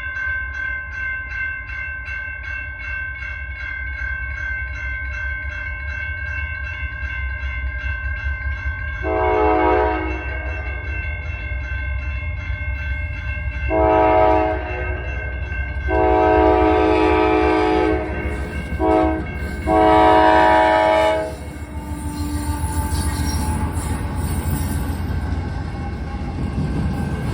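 Freight locomotive air horn (NS AC44C6M) blowing five blasts over a low train rumble: a long one about nine seconds in, another a few seconds later, then a longer one, a short one and a final long one. A grade-crossing bell rings fast and steadily throughout. Near the end the train's rolling noise swells as it reaches the crossing.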